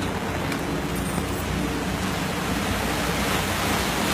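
Steady, unbroken rush of heavy water, as in rain-swollen floodwater.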